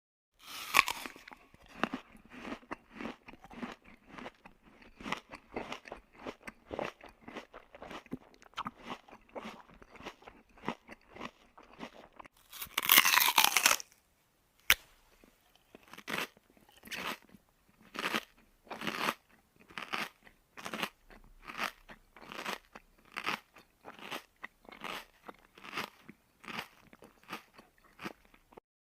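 A person chewing crunchy food close to the microphone: rapid crunching at first, a louder crunching bite a little before halfway, then slower, evenly spaced chews.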